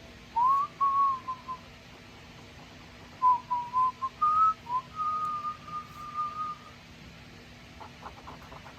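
A whistled tune of short gliding notes in two phrases: one about half a second in, and a longer one from about three seconds in that ends on a long held note.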